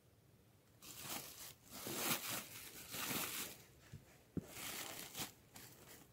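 Hands scraping and rustling loose dry earth and brush in several uneven bursts, with one sharp knock about four seconds in.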